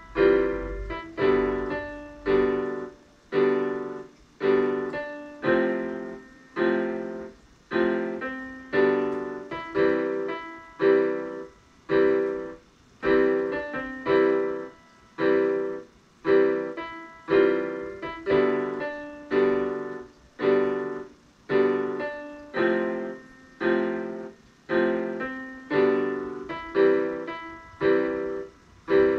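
Electronic keyboard played with a piano sound: a slow melody over chords, each note or chord struck and left to fade before the next, about one to two a second, played by a beginner.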